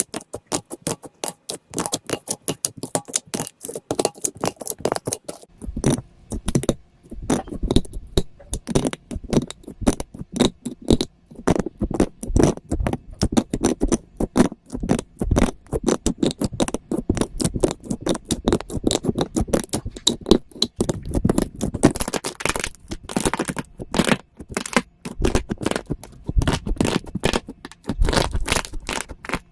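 Slime with a layer of hardened wax on it being pressed and worked by hand: a dense, rapid run of small crackles and clicks, with fuller, lower sounds joining in about five and a half seconds in.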